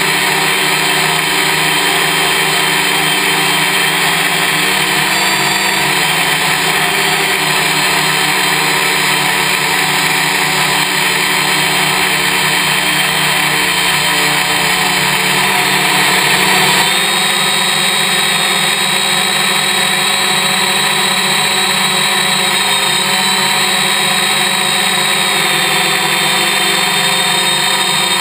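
Electric motors and propellers of a Y6 multicopter whining steadily in flight, the whine stepping in pitch with throttle changes, most clearly about two thirds of the way through.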